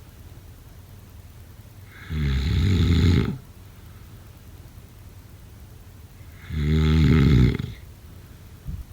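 A person snoring in sleep: two long snores, each about a second, one a couple of seconds in and one about two-thirds of the way through, with quiet between them.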